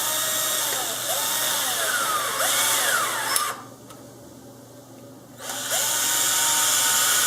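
Cordless power driver running in two bursts to drive small M3 screws, its motor pitch rising and falling as the trigger is worked. There is a pause of about two seconds between the bursts.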